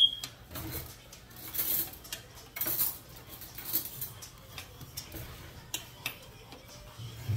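Chopsticks and a metal spoon clicking, tapping and scraping against ceramic plates and bowls while eating, with a sharp ringing clink right at the start.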